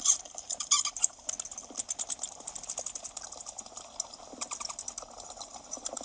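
Bats squeaking: a fast, unbroken stream of short, high-pitched chirps and squeaks, many per second, used as a Halloween sound effect.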